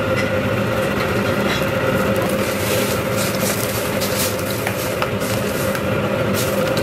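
Steady roar and hum of a commercial gas wok burner and kitchen exhaust, with a few light clinks of a metal ladle against the steel wok as jjamppong broth is stirred.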